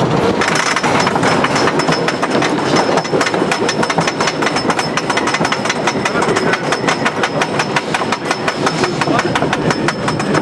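Wooden roller coaster train climbing a chain lift hill: the lift chain and anti-rollback ratchet clack in a rapid, even rhythm of several clicks a second, with a thin steady high whine entering about half a second in.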